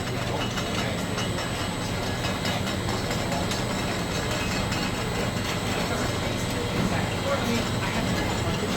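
Steady low hum of bottling-line machinery, with faint murmur of voices in the background.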